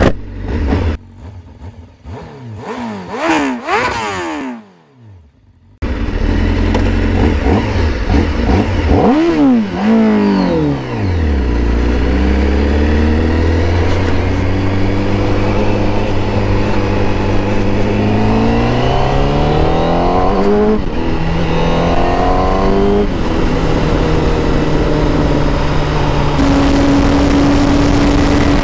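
Honda CBR1000RR-R Fireblade SP's 1000 cc inline-four through an Akrapovic exhaust, revving and then accelerating under load. Its pitch climbs steadily and drops sharply at two gear changes, then settles into a steady note near the end.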